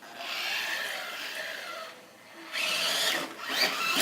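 A toy RC car's small electric motor whirring in bursts, its pitch rising in the last second or so.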